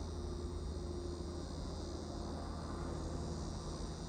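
Steady high-pitched insect chorus, a continuous trill, over a low steady rumble.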